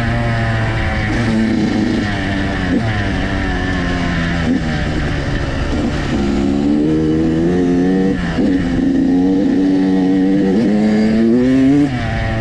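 Dirt bike engine under way on a trail, its pitch climbing under throttle and then dropping sharply, over and over, as the rider rolls on and off the gas and shifts.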